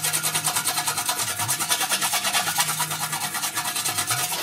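A body-shop slapper striking the steel wing of a classic Mini in a fast, even series of sharp metallic blows, about eight a second, beating out a dent.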